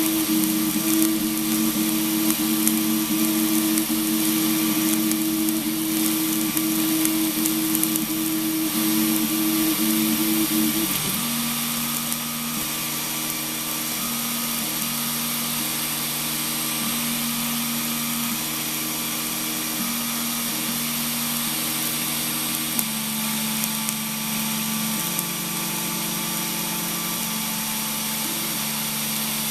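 3D printer running a print: its stepper motors hum in steady low tones that jump to a new pitch every few seconds as the moves change, over a constant fan hiss. The hum is a little louder for about the first ten seconds.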